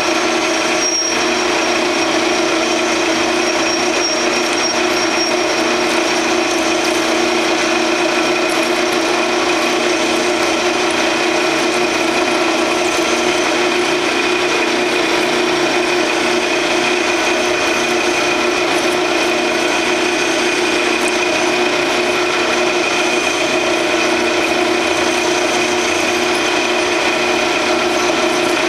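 Grizzly G0602 10x22 metal lathe running steadily while a parting tool cuts off the workpiece: a steady machine hum with a high whine above it and a scraping cutting noise.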